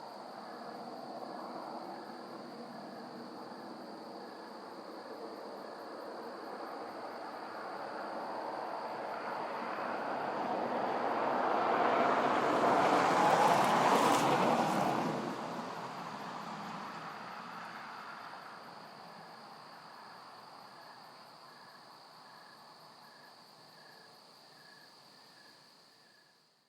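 A car passes by, its noise rising slowly to a peak about thirteen to fifteen seconds in, dropping off suddenly and then fading away. Crickets chirp steadily throughout.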